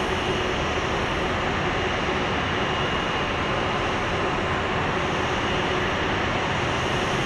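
Steady jet whine over a broad rumble from a Boeing 787-8 airliner being pushed back on the apron, unchanging throughout.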